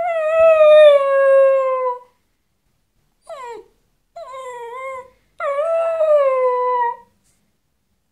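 Domestic dog howling. A long howl sliding slightly down in pitch, a short cry falling steeply about three seconds in, then two more howls, the last about a second and a half long. The dog is howling because its canine companion has left the house.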